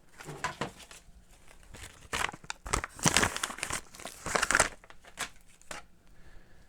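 Plastic packaging crinkling and rustling in irregular bursts as it is opened and handled, loudest a little past the middle.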